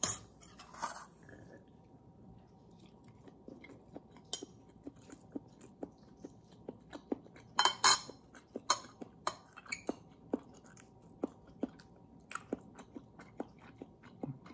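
A person chewing and biting food, with wet mouth clicks coming irregularly, about one or two a second. About halfway through there is a short burst of louder, sharper clicks.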